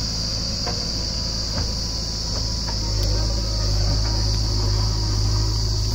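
Diesel engines of a JCB backhoe loader and a tractor running steadily at a low pitch, under a steady high-pitched insect buzz.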